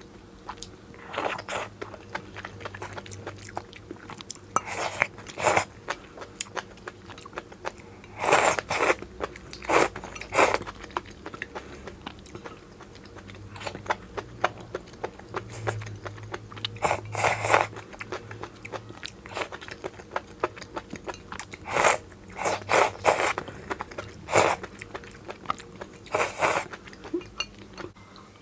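Close-miked chewing and biting of hotpot food: irregular crisp crunches and wet mouth sounds.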